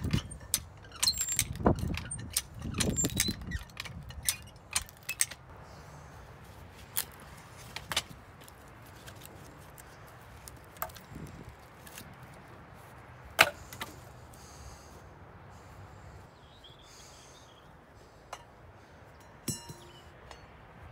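High-lift farm jack clacking as its splitter wedge is forced into a round of wet red oak, with low creaking and cracking from the wood in the first few seconds. After that come scattered knocks and clicks as split wood and the jack are handled, one sharp knock about halfway and a brief metal rattle near the end.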